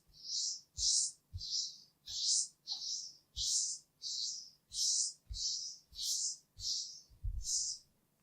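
Makeup being applied with rhythmic brushing strokes, about two short hissing swishes a second, some with a soft low thud as the tool meets the surface.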